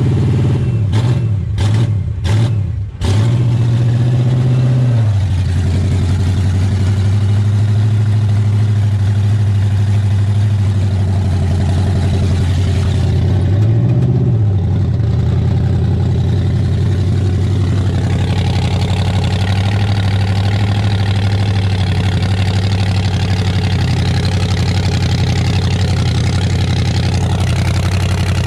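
383 stroker small-block Chevy V8 in a mud truck, running on seven cylinders with one cylinder dead from a spark fault. Its engine speed rises and falls unevenly a few times in the first seconds, drops back to idle about five seconds in, revs briefly near the middle, then idles steadily.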